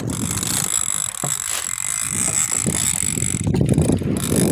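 Big-game fishing reel's drag buzzing steadily as a hooked fish pulls line off it, a high-pitched whine over a low rumble.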